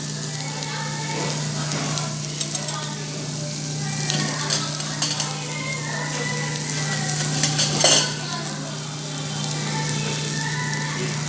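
Meat sizzling on a tabletop Korean barbecue grill, with a few short clicks of metal utensils against the grill about two and a half, five and eight seconds in.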